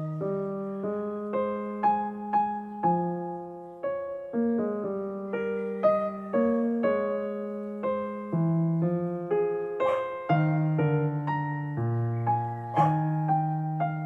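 Background music: a slow, gentle keyboard melody of struck notes that fade, a new note roughly every half second.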